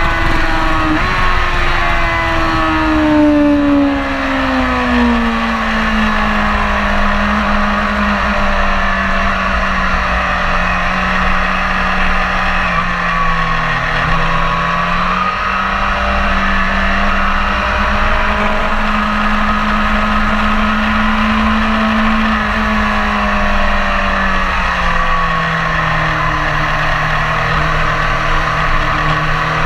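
BMW S1000RR inline-four engine heard onboard at track speed. The revs fall smoothly over the first several seconds, then hold steady in the mid-range through long bends, dipping and picking up briefly about halfway. They fall again a few seconds before the end.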